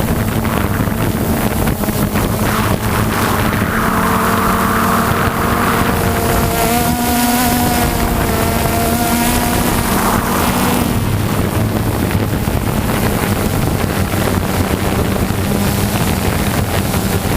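Aircraft engine droning steadily, its tones shifting about halfway through as it passes, with wind buffeting the microphone.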